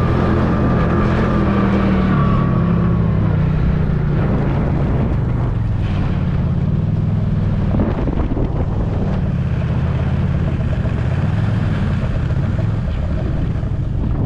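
Snowmobile engine running steadily under load on a snowy slope, with a high whine that falls away over the first three seconds; wind buffets the microphone.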